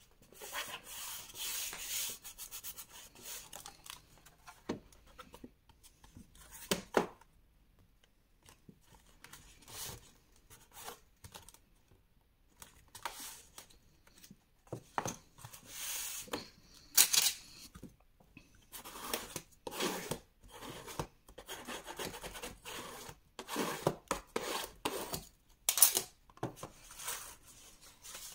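Cardboard and paper being handled: hands rub and press a glued kraft card strip down onto a cardboard box so it sticks, in irregular scraping, rustling strokes. A few sharper knocks come as the box is moved, about two-thirds of the way in and again near the end.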